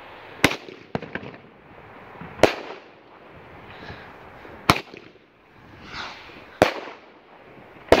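Aerial fireworks bursting: five sharp bangs about two seconds apart, with a short run of crackles just after the first.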